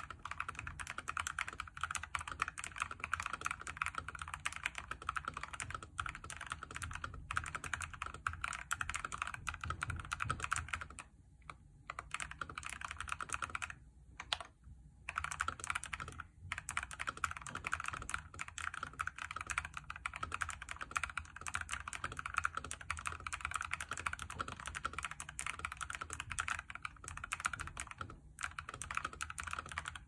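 Fast two-handed typing on a stock CIDOO ABM084 mechanical keyboard with prelubed Flamingo switches, not tape-modded: a dense run of key clacks that sounds like marbles dropping on a desk. The typing breaks off briefly twice, about eleven and fourteen seconds in.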